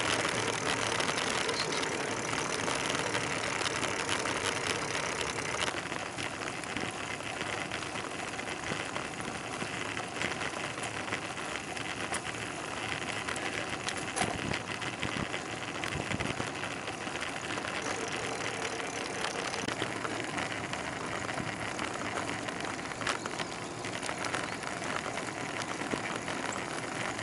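Bicycle riding on a paved road: steady rush of tyre and wind noise with many small clicks and rattles.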